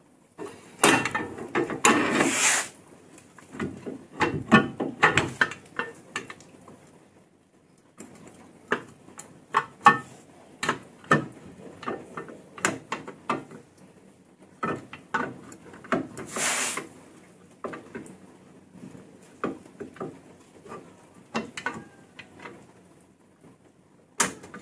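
Metal hand tools clicking, clinking and knocking against rear axle and brake parts during reassembly, in irregular bursts, with two short hiss-like bursts about two seconds in and again near the middle.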